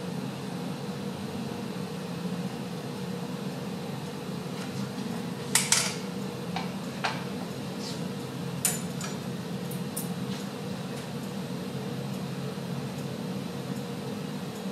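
A glassblower's gas bench burner running with a steady flame noise and a faint hum, while glass clinks lightly about six times between about five and ten seconds in, the loudest clink near five and a half seconds.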